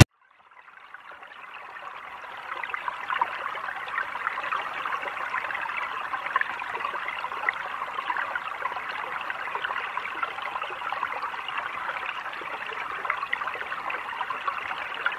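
A small stream babbling steadily, fading in over the first couple of seconds.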